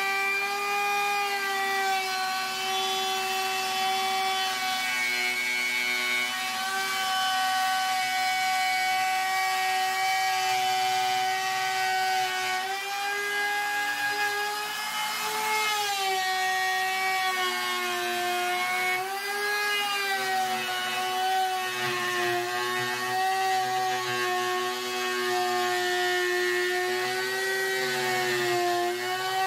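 Ridgid trim router running at reduced speed, its bit cutting a juice groove into a wooden cutting board. A steady high whine that dips in pitch a few times as the bit takes load, most noticeably around the middle and near the end.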